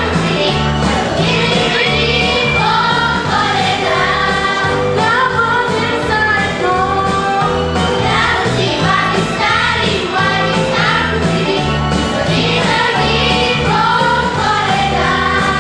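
Children's choir of girls singing a melody into stage microphones over an instrumental accompaniment with a steady, repeating bass line.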